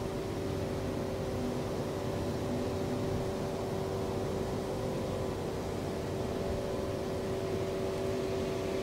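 A train standing at the station, its engine or onboard equipment humming steadily with a few held tones and no change in pitch.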